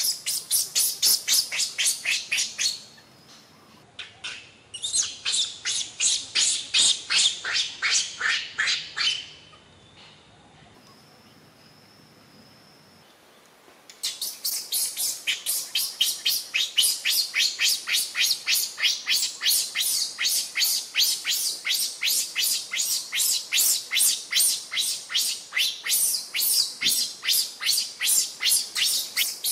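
Infant macaque crying in rapid runs of short, high-pitched squeals, about three to four a second. The calls come in three bouts, stopping about three seconds in, again from about five to nine seconds, and then going on without a break from about fourteen seconds in: the distress calls of an infant left by its mother.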